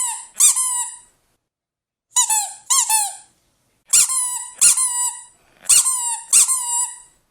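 Rubber squeaky dog toy being squeezed and released, giving high squeaks in pairs, each dropping in pitch at its end, about four pairs with short silences between.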